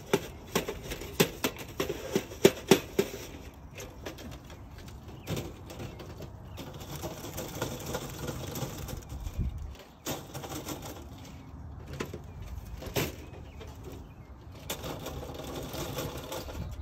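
Thin titanium Woods Walker tent stove being cleaned out and handled: a run of quick metallic taps and clicks for the first three seconds, then a steady rustle with scattered knocks, one louder knock near the end.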